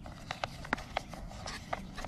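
A small screwdriver turning a screw into a plastic toy truck's body, giving a run of irregular sharp clicks and ticks of the driver and screw against the plastic.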